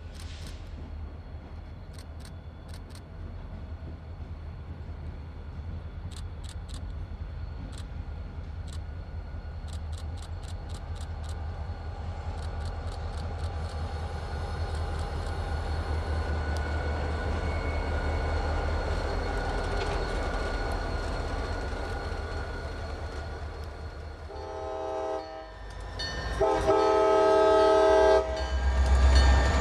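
A diesel freight locomotive approaching, its engine rumble slowly growing louder. Near the end its air horn sounds a short blast and then a long one, and the engine is loud and close.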